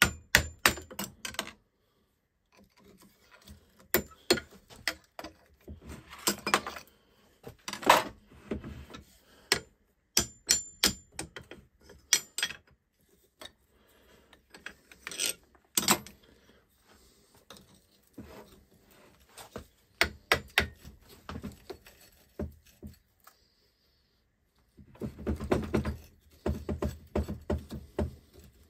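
Steel screwdrivers clicking, tapping and scraping against the clutch front plate of a Denso 7SB16C car AC compressor as it is pried, in irregular clusters of sharp metallic clicks. A denser stretch of rattling and scraping comes near the end.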